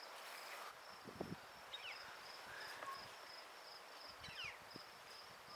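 Faint outdoor ambience of insects chirping in a steady, evenly pulsing high trill, with two brief falling chirps about two and four and a half seconds in.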